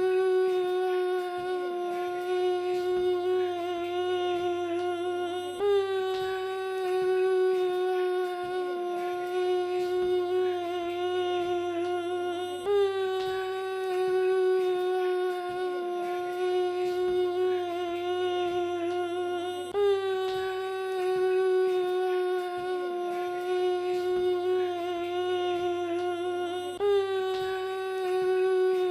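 Vocoder sound effect: one held, synthetic voice-like note with a buzzy, many-harmonic tone, restarting about every seven seconds with a short slide down in pitch at each restart.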